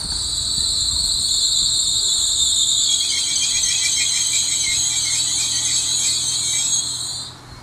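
Brakes of an ETR 104 "Pop" electric multiple unit giving a loud, steady, high-pitched squeal as the train slows to a stop; the squeal cuts off about seven seconds in, as the train halts.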